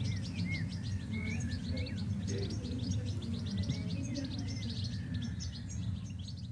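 Birdsong of many rapid, high chirps with a few short gliding whistles, over a low steady music bed, on the soundtrack of an animated film.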